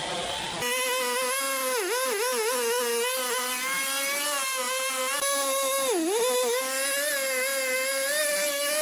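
Sawmill saw running with a steady high whine, its pitch sagging briefly as the blade bites into the wood, twice: once around two seconds in and again near six seconds.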